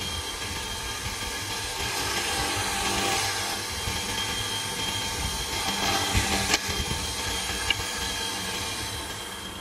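Bench drill press running with a steady motor hum as its bit bores holes through a flat wooden blank, the cutting noise swelling and easing as each hole is drilled.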